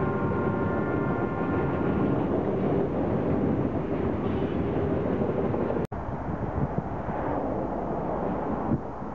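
Freight train of autorack cars rolling past on steel wheels, a steady rumble with faint high-pitched tones in the first two seconds. It cuts off abruptly about six seconds in, and wind on the microphone follows.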